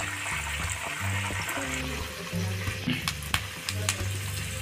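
Food frying in hot oil, a steady sizzle, with a few light clicks in the second half. A background music track with a low repeating bass line plays along.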